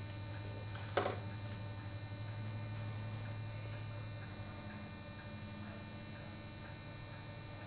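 Clockwork movement of a Bontems singing bird cage automaton running on quietly after the song stops: a low steady hum that fades a little about four seconds in, with one click about a second in and faint light ticks.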